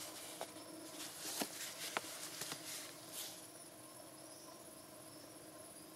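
Gloved hands handling a plastic engine-oil bottle: rustling of the gloves against the plastic, with a few light clicks and taps. It goes quieter after about three seconds, leaving a faint steady hum.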